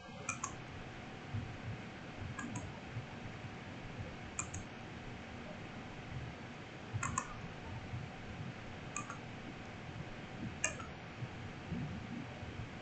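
Faint computer mouse clicks, about six of them, coming roughly every two seconds over a faint steady hum.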